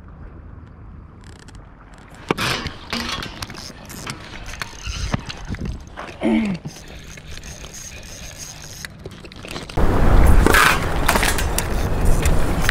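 Spinning fishing reel clicking and ratcheting as it is handled and wound while a fish is on the rod. About ten seconds in, a louder steady rushing noise suddenly takes over.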